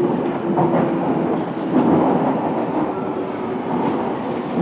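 Fukuoka City Subway 1000 series electric train running, heard from inside the car: a steady rumble of wheels on rail and running gear, with a faint steady hum.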